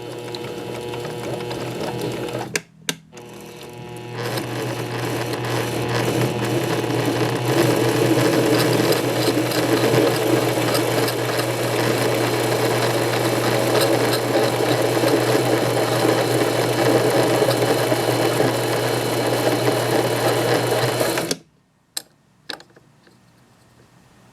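Compact 7 benchtop metal lathe running, a steady motor hum with gear and spindle noise. It stops briefly about three seconds in, starts again and grows louder, then cuts off near the end, followed by two short clicks.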